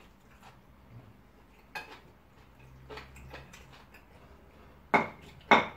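Metal spoon clinking against a plate and serving bowl: a few soft taps, then two sharp, loud clinks near the end.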